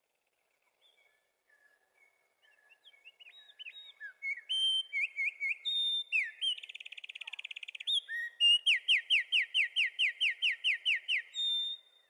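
A wren singing: faint whistled notes that build into a loud song about four seconds in, with a very fast trill, then a run of about a dozen quick repeated down-slurred notes, ending on one held note.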